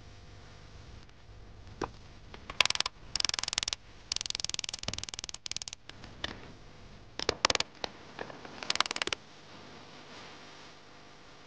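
Metal scraping and rattling in a series of short harsh bursts, starting a couple of seconds in: steel on steel as the radiator griddle top is shifted on the rocket stove and the steel flue pipe is handled.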